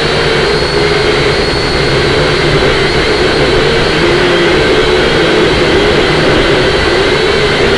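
Syma X5C-1 quadcopter's small motors and propellers whining steadily, the pitch wavering up and down as it is flown, over heavy rumbling wind noise on the microphone.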